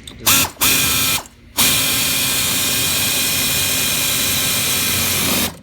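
Power drill driving screws back into the dashboard mounts: two short bursts, then one long steady run of about four seconds.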